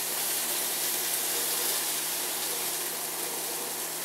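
Beef burger patties sizzling in a cast iron pan: a steady, even hiss.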